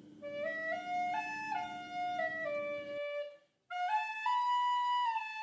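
Flute-like woodwind melody moving in short stepwise notes, breaking off for a moment a little past halfway and then carrying on.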